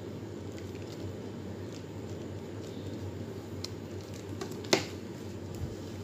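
Soft, faint scraping of a block of cheese rubbed over a hand grater onto the martabak, over a steady low hum, with one sharp click about four and a half seconds in.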